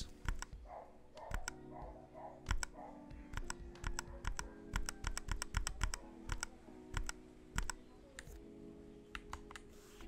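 Kemove K68 low-profile mechanical keyboard with pre-lubed Gateron red switches, its Fn and Tab keys pressed again and again to cycle the LED strip colours. The keystrokes click irregularly, often two close together, every half second or so.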